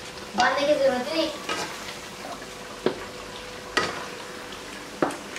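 Knife chopping fresh coriander on a cutting board: three sharp knocks about a second apart over a steady low hiss. A short wavering tone is heard near the start.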